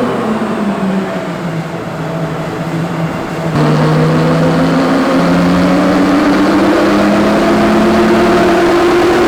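Jeep Wrangler's 3.6 Pentastar V6 under a dyno pull: the revs sag for the first few seconds, then about three and a half seconds in the throttle opens wider, the engine gets louder and its pitch climbs steadily as it winds up under load.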